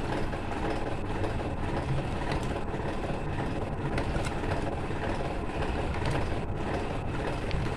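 Steady background noise, with a few faint clicks from pliers handling and twisting copper electrical wires together in a plastic junction box.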